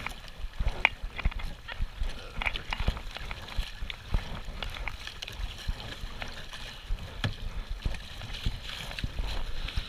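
River water rushing and sloshing around a kayak hull in choppy rapids, with irregular splashes of double-bladed paddle strokes and a low rumble underneath.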